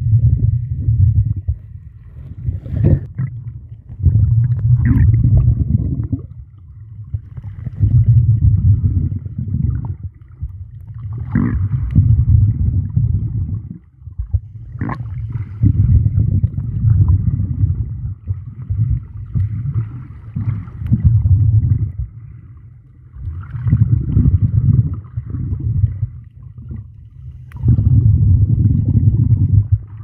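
Muffled underwater water noise picked up by a submerged camera while snorkelling: a low rumbling and sloshing that swells and fades about every four seconds, with a few sharp clicks.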